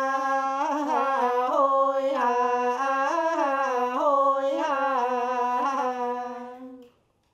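A man singing Quan họ Bắc Ninh folk song unaccompanied, holding one long vowel at a steady pitch with small quick turns and flicks in the melody, and breaking off about seven seconds in.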